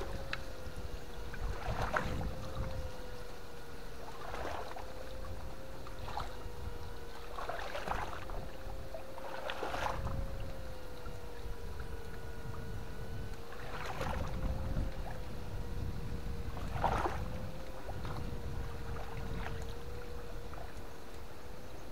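Electric fish-shocker giving off a steady, slightly wavering whine at one pitch. Short splashes in the water come every two to three seconds.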